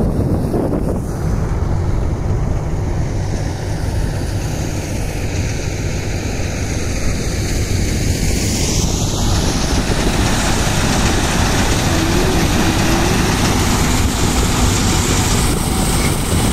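Wind buffeting the microphone, a steady loud rumble over open riverside ground. In the last moment it gives way to a combine harvester running.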